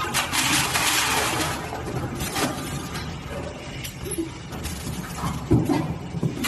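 Automatic side-taping machine for styrofoam ice boxes running: a dense rasping noise for the first two seconds, then lighter mechanical clatter with a sharp knock about five and a half seconds in.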